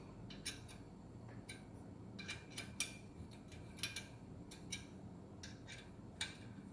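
Light metallic clicks at irregular spacing, often in pairs, as a hand tool tightens the side bolts of a motorcycle headlamp bracket. A low steady hum runs underneath.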